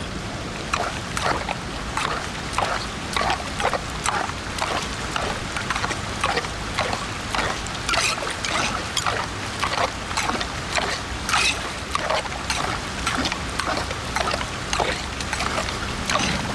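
Floodwater splashing and sloshing at a street drain in short, irregular splashes, two or three a second, over a steady rush of water.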